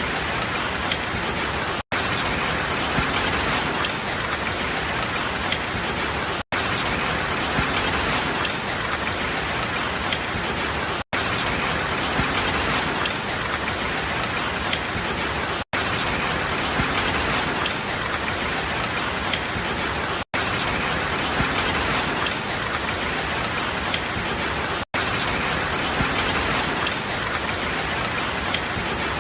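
Steady heavy rain falling and pattering on surfaces, a dense even hiss. It is broken by a very short dropout about every four and a half seconds.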